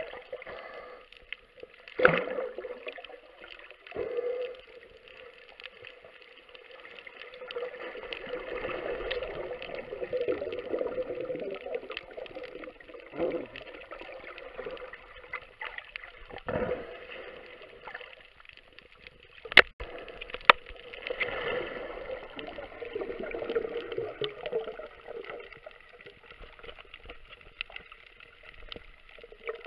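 Underwater sound of scuba exhalation bubbles gurgling in long swells, with a few sharp clicks and a faint steady whine throughout.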